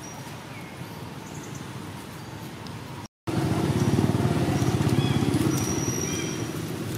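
Faint outdoor background with a few high chirps, then, after a short dropout about three seconds in, a louder low engine running steadily with a rapid even pulse.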